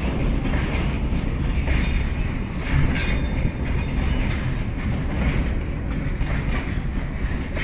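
BOXNHL open freight wagons rolling past, their steel wheels giving a steady low rumble on the rails. Two brief sharp high-pitched sounds come about two and three seconds in.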